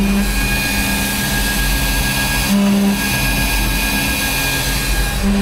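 Carvera Air desktop CNC mill cutting aluminium: a steady high spindle whine over cutting noise. A short low hum comes in three times, about every two and a half seconds.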